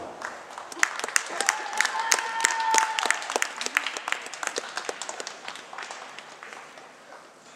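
Applause from a small audience in an ice rink, the individual claps distinct, thinning out and fading over the last couple of seconds. One drawn-out call rises over the clapping about two seconds in.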